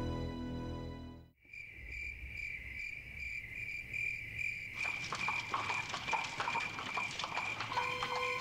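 Music cuts off about a second in, leaving crickets chirping in a steady pulse of about three chirps a second. About halfway through, a horse's hooves start clip-clopping over the chirping, and a steady tone comes in near the end.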